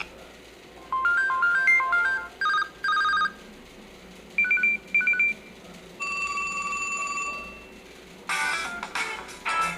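LG Optimus L4 II smartphone playing its built-in ringtones and alert tones one after another through its small speaker. First comes a quick run of electronic notes, then two short chords, two double beeps, and a single long tone that fades out. A busier tune starts near the end, with short pauses between the tones.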